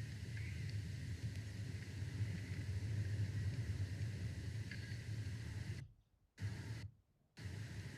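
Outdoor ambience of a steady low rumble with faint hiss over it. It cuts out abruptly twice near the end.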